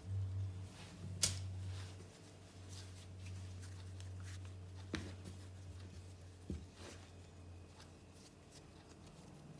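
Hands stretching, rolling and folding a small ball of bread dough on a floured bench: soft rustling and patting, with a sharp tap about a second in and smaller ones about five and six and a half seconds in. A low hum runs underneath and stops about six and a half seconds in.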